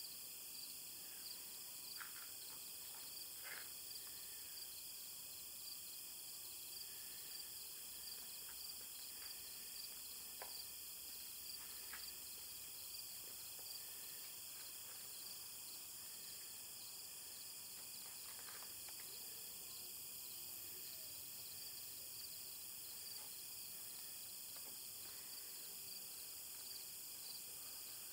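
Faint, steady chorus of insects chirping outdoors, with a few soft scattered ticks.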